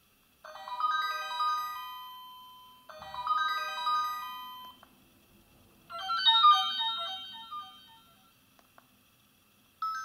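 myPhone Hammer 4 feature phone previewing its built-in message alert tones through its loudspeaker: a short melodic run of bell-like notes plays twice, then a different tone of quicker notes starts about six seconds in, and another begins near the end.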